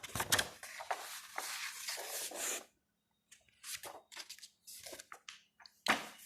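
Paper and card rustling as an album's photo book and inserts are handled and pages turned: a long rustle for the first couple of seconds, then several short scrapes and rustles.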